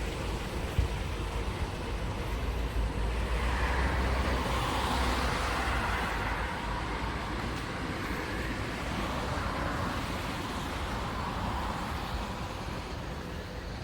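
Cicadas buzzing in a dense chorus, a hissing drone that swells a few seconds in and then slowly fades, over a low steady rumble.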